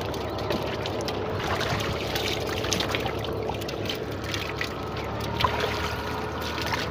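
Shallow muddy water sloshing and splashing with many small splashes as people wade and grope through it with their hands.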